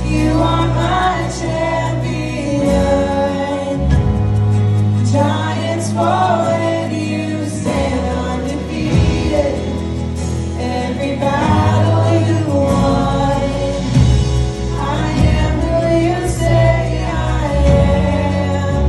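Live contemporary worship music from a band with keyboard, electric guitar and drums, with several voices singing together over long held bass notes.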